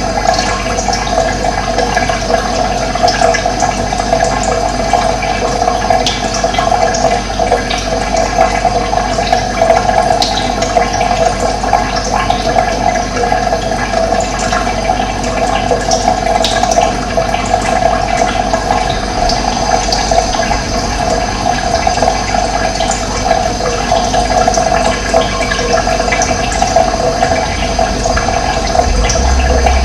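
Steady rushing of running water, loud and unbroken.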